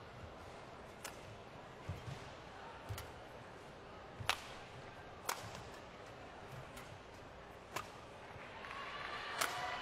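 Badminton rally: rackets strike the shuttlecock in sharp cracks about once a second, with soft footfalls on the court between hits. Crowd noise swells near the end.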